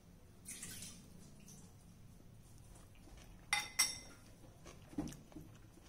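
Steel spoon clinking twice against a ceramic bowl, two quick sharp clicks, between quiet stretches.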